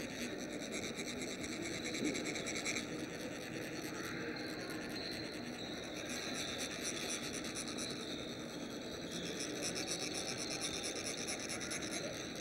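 Metal chakpu sand funnel being rasped along its ridged shaft with a metal rod: a fast, even, continuous scraping whose vibration trickles a fine line of coloured sand from the tip.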